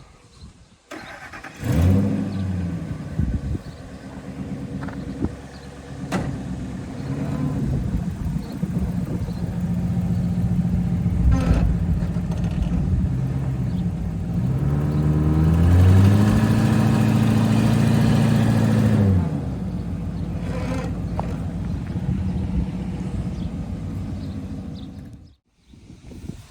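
Ford F-250 Super Duty's gasoline Triton engine starting about two seconds in and idling. About two-thirds of the way through it revs up, holds for a few seconds and drops back to idle. It shuts off abruptly near the end.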